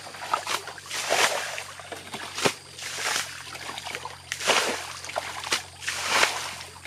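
Shallow, muddy running water splashing in several short, irregular bursts, over a faint steady trickle.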